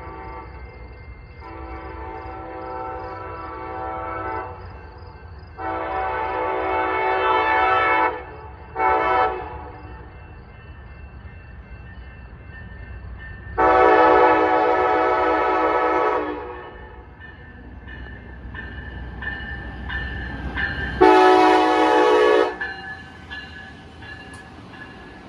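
Amtrak passenger locomotive sounding its horn while approaching: two long blasts, a short one and a long one, the standard grade-crossing signal, then one more loud blast about 21 s in. A steady low rumble of the train runs underneath.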